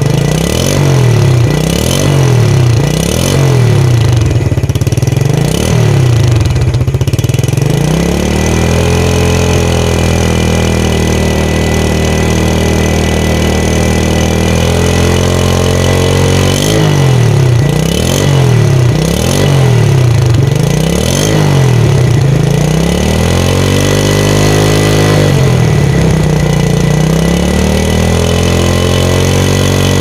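2010 Yamaha Vega ZR's single-cylinder four-stroke engine, heard at the exhaust, revved in quick blips about once a second. Near the middle it is held at a steady speed, then blipped again, then given one longer rev, and it settles into a steady run.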